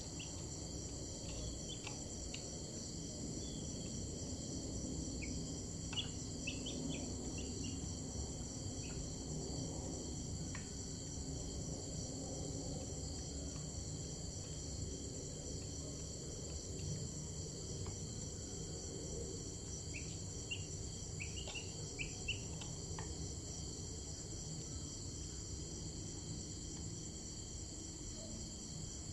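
Steady chorus of crickets chirping, a high continuous buzz with a fast pulsing texture, over a low background rumble. A few short high chirps from another source come and go.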